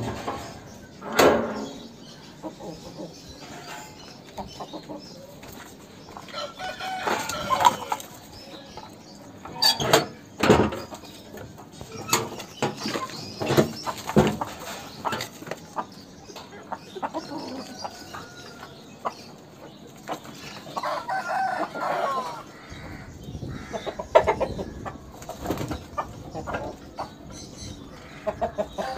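Aseel roosters clucking and crowing in separate calls spread over about half a minute, with a few short, sharp sounds between the calls.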